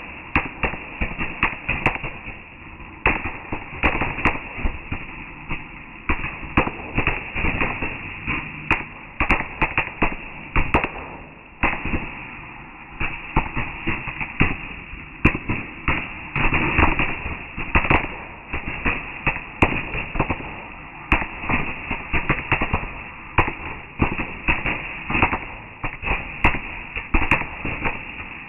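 Fireworks going off: a dense, irregular run of sharp bangs and crackles, several a second, with short lulls between volleys.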